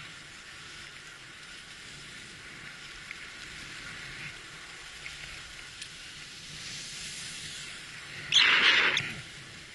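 Skis hissing steadily over groomed, packed snow during a descent, with one much louder rush lasting under a second near the end.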